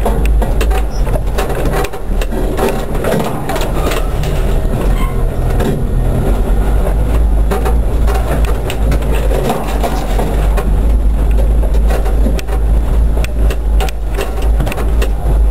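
Cabin sound of an off-road vehicle driving slowly over a rutted, muddy track: a loud low rumble with frequent knocks and rattles as it bumps through the ruts.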